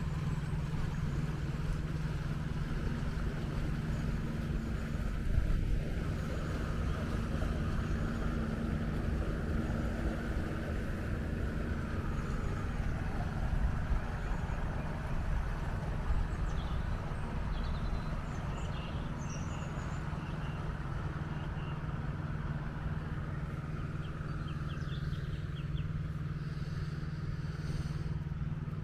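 Steady low hum of the rigid inflatable boat's outboard engine running at low speed, with wind rumbling on the microphone.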